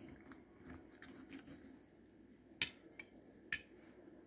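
Knife and fork cutting a fried potato pancake on a glass plate: faint scraping, then two sharp clinks of metal on glass about a second apart in the second half.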